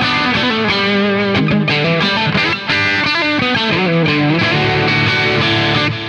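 Electric guitar fitted with copies of DiMarzio Cruiser single-coil-sized rail humbuckers, played as a fast single-note lead line with sliding notes. There is a brief break in the playing about two and a half seconds in.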